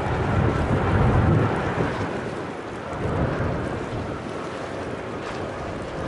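Airbus A330 airliner on approach with its landing gear down, passing with a steady rumble of its jet engines, loudest about a second in and easing off a little after.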